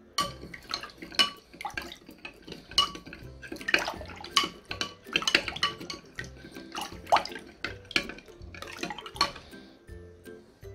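Metal spoon stirring salt into water in a glass jar, clinking repeatedly against the glass as the salt dissolves into brine, with background music.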